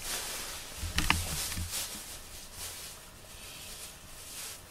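Soft rustling and a few light clicks from a cat grooming its fur close up, with a short low bump about a second in.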